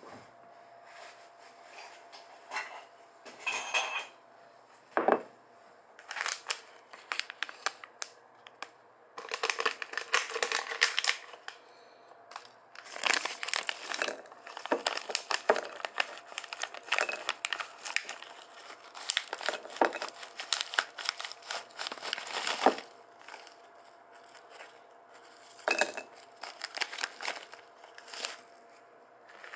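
Plastic snack bag of five-spice peanuts being handled and torn open: crinkling and rustling in irregular bursts, with some sharp clicks, and peanuts rattling against a ceramic bowl.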